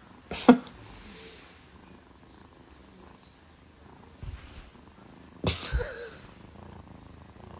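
Domestic cat purring, with two brief louder sounds, one about half a second in and one near six seconds.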